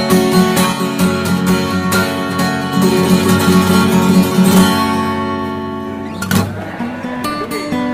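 Background music on acoustic guitar: a quick plucked and strummed rhythm that eases into a ringing chord about five seconds in, then sparser notes before the rhythm picks up again near the end.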